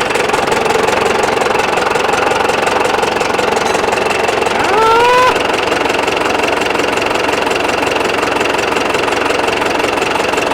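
The four-cylinder diesel engine of a 1961 Case 831C tractor running steadily with diesel knock, just after its injector lines were bled. About halfway through, a short rising tone sounds over it.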